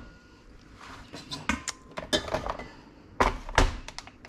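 Kitchen clatter: a run of short clinks and knocks from bowls and utensils being handled, the loudest about three and a half seconds in.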